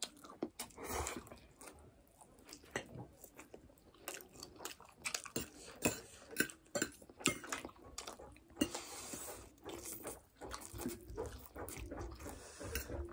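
Eating sounds of two people having noodles with forks: irregular clicks and scrapes of metal forks against ceramic plates, with chewing and noodles being slurped in.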